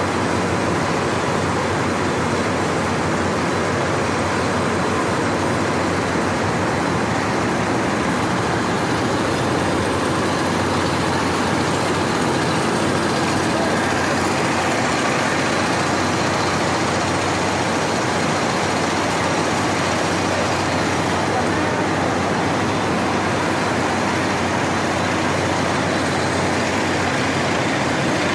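Belt-driven cotton roller gins running, a steady dense mechanical noise from their rollers, electric motors and belts, unchanging throughout.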